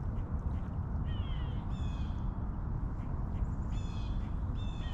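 A bird calling several times in short, slightly falling calls, over a steady low rumble.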